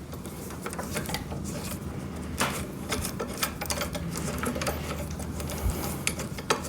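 Metal parts clinking and rattling in short, scattered clicks and light knocks as the axle and frame pieces of an electric wood chipper are handled and fitted together by hand.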